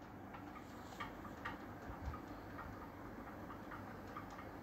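Faint light ticks or clicks, irregular and roughly two a second, over quiet room tone.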